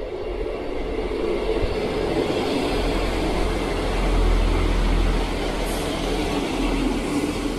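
ScotRail Class 158 diesel multiple unit running into the platform, a steady rumble of engine and wheels on rail that grows louder to a peak about halfway through, then eases.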